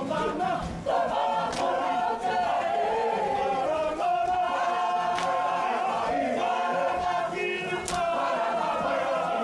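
Kapa haka group of men and women chanting and singing in unison, with three sharp percussive hits through the performance.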